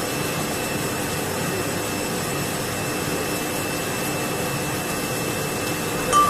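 H-beam 3-in-1 welding machine running during a welding test: a steady, even mechanical hiss and hum with faint constant tones. A short ringing tone, the loudest thing, comes right at the end.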